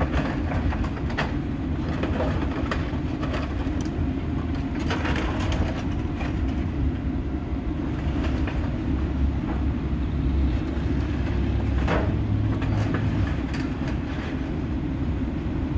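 Excavator's diesel engine running steadily under load while its grapple crushes the sheet-metal body of a school bus, with scattered cracks, crunches and clanks of metal; one of the sharpest cracks comes about three-quarters of the way through.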